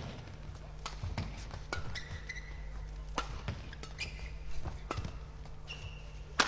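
Badminton rackets striking a shuttlecock in a fast doubles rally: sharp, irregular cracks about every half second to second, with short squeaks of shoes on the court floor and a steady low hum of the hall.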